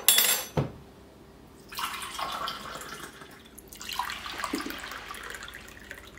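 A spoon clinks sharply against the metal bowl a few times at the start. Then warm water runs into a measuring cup in two pours of about two seconds each.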